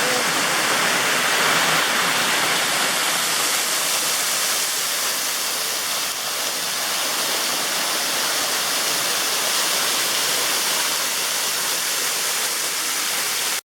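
A waterfall's rushing water: a loud, steady, unbroken roar of falling water that cuts off suddenly near the end.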